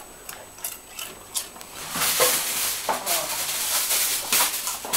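Potato chip bag rustling and crinkling: a few light clicks at first, then a steady crackle from about two seconds in.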